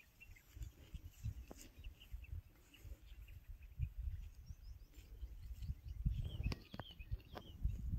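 Small birds chirping in short calls, busiest near the start and again in the last couple of seconds, over a low wind rumble with a few faint clicks.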